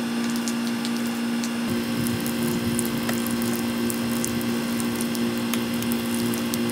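A steady stream of liquid splashing onto a small airsoft battery pack lying on asphalt, with a steady hum and scattered crackling.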